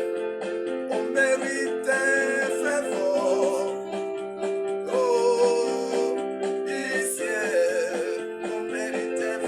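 Music: a sung melody with vibrato over held chords.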